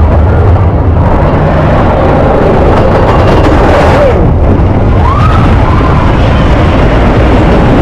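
Roller coaster ride noise: a loud, steady rumble of the train on the track and wind buffeting the microphone, with a few short gliding cries over it.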